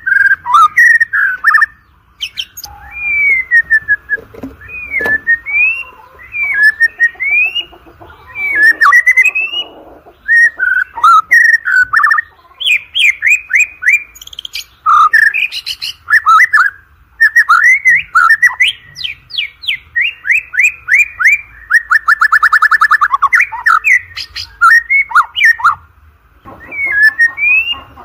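White-rumped shama singing a long, varied song of loud whistled phrases with quick rising and falling notes, broken by short pauses, and a fast run of rapidly repeated notes near the end.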